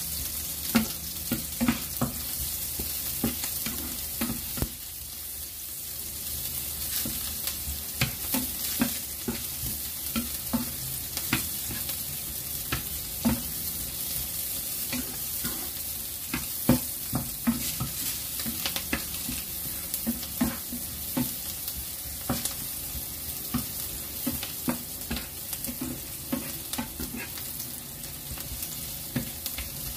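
Chopped garlic and onion sizzling in hot oil in a nonstick frying pan while they are sautéed, with a wooden spatula scraping and knocking against the pan in irregular strokes as it stirs.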